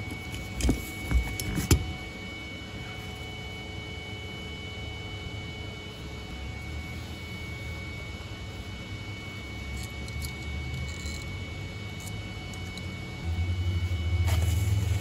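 Three sharp clunks of metal tools being picked up and set down on a workbench, then, about two seconds before the end, a loud low electrical hum as a MIG welder starts up, with a brief hiss just after.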